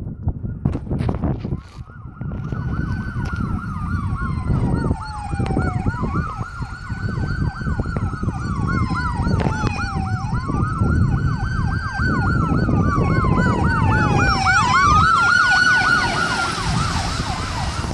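Ambulance siren running Code 3, a wail that rises and falls slowly, about four seconds per cycle, with a faster warble layered over it. It grows louder as the ambulance approaches, and is loudest near the end as the vehicle passes close by with tyre and engine noise.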